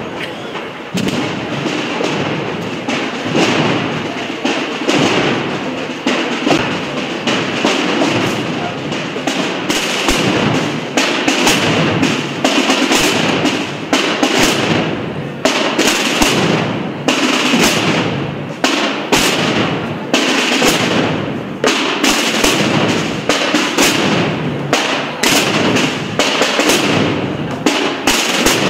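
Massed procession drums, tambores and bass bombos, beating together in a dense, unbroken rattle of strokes.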